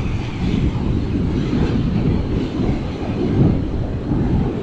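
Strong wind buffeting the microphone in a loud, steady low rumble, over surf breaking and washing up the beach.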